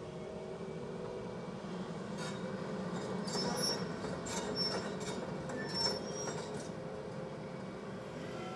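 Volvo crawler excavator's diesel engine running steadily under hydraulic work, with a run of high metallic squeals and clanks from the machine in the middle as it swings and moves.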